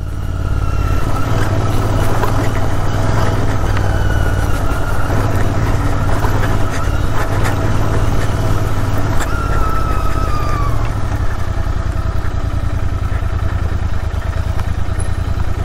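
Royal Enfield Interceptor 650's parallel-twin engine running steadily as the motorcycle rides a rough, muddy off-road track. Occasional sharp knocks come from the bike going over the rough ground.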